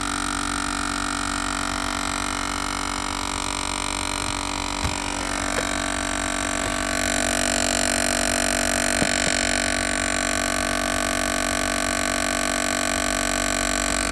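2009 Toyota Camry Hybrid giving off a steady droning hum made of several fixed tones: the strange noise the owner hears each time the car is started and stopped. It grows a little louder about seven seconds in, with a few faint clicks.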